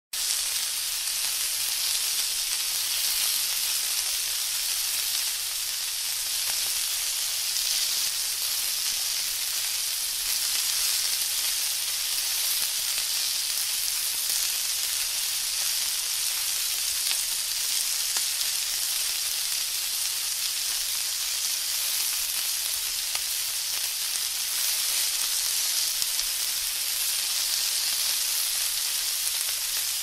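Food frying in a hot pan: a steady, high sizzle with fine crackling.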